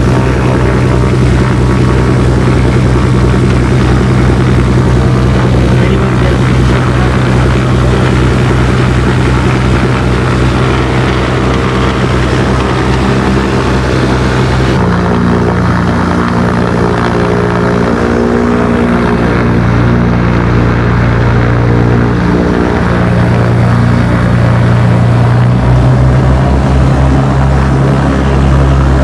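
Beechcraft Baron's twin piston engines and propellers running at low power, heard from inside the cabin. The steady engine note shifts abruptly about halfway through and again near the end.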